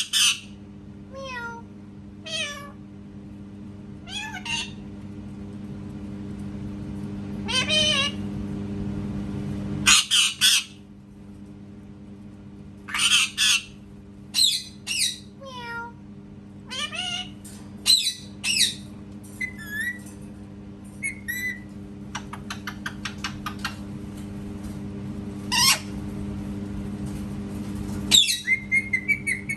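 Pet parrot squawking and mimicking a cat's meow in a string of short, separate calls, many sliding down in pitch. About 22 seconds in there is a quick run of clicks.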